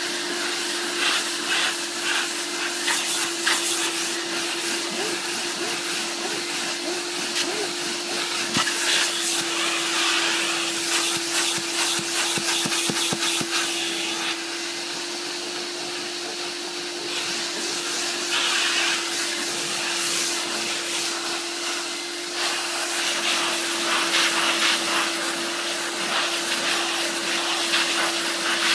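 Steam cleaner jetting steam through its wand nozzle onto a carpeted car floor mat: a steady hiss over the machine's constant hum. The hiss eases for a few seconds around the middle.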